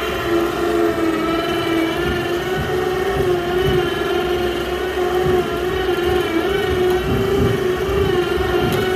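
Harbor Freight electric ATV winch running under heavy load, a steady motor whine that wavers slightly in pitch as it strains, hauling a roughly 1,500-pound log splitter. Under it is an irregular low rumbling.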